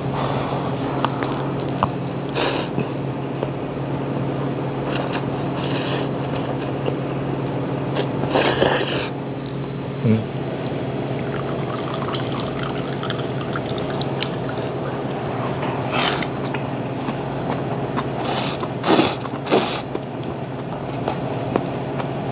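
Noodles being slurped from a bowl of clear beef soup: several wet slurps at intervals, the longest about a third of the way in and three quick ones near the end. A steady low hum runs underneath.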